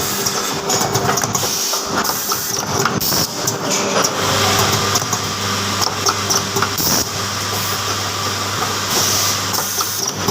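Automatic cable-soldering machine running: a steady mechanical clatter with frequent short clicks, and a low hum that comes in about four seconds in and stops near the end.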